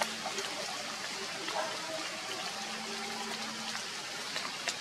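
Steady rain falling: an even hiss with a few scattered drips and taps.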